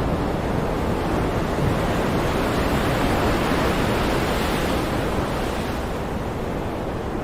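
Stormy sea: heavy waves surging in a continuous rush, one swell building to a peak in the middle and easing off, with wind buffeting the microphone.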